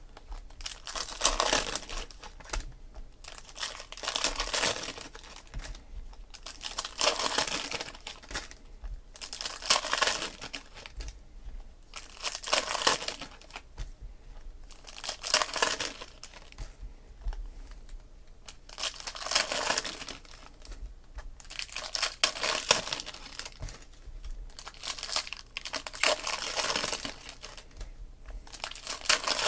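Foil 2016 Panini Prizm Football card packs being torn open and crinkled by hand, in repeated bursts about every three seconds.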